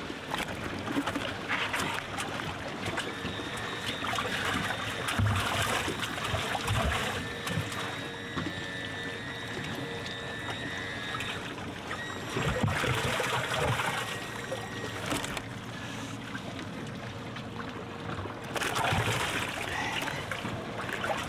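Water trickling and splashing around a fishing boat, with a steady rushing noise that swells and fades.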